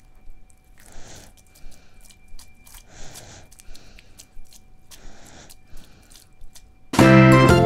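A person's slow, heavy breathing: a louder breath about every two seconds with a softer one between, over a faint steady high whine. About seven seconds in, loud music with plucked strings and keyboard cuts in.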